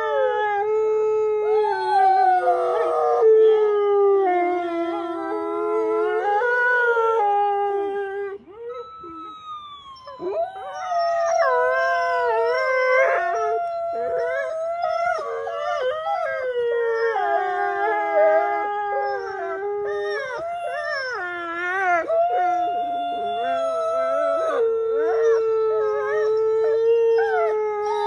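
Several canines howling together in a chorus of overlapping, wavering pitches. About a third of the way in the chorus thins to a single falling howl, then builds back up with rapid warbling and yipping howls.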